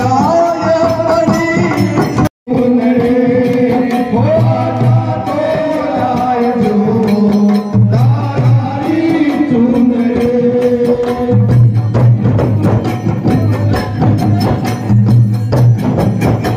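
Rajasthani Holi folk song (dhamal) sung over the rhythmic beating of chang frame drums, loud throughout. The sound cuts out for a split second a little over two seconds in.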